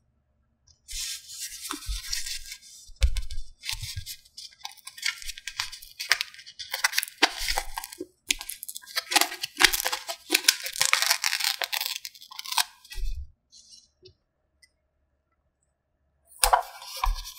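Toy packaging being torn open and handled, in a run of rustling tears with a few soft knocks, then a pause and one more short burst of tearing near the end.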